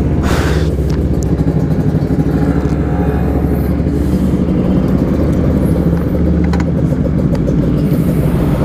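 Yamaha RX King's 135cc two-stroke single-cylinder engine running steadily at low revs, its note pulsing evenly. A short rushing hiss comes about half a second in.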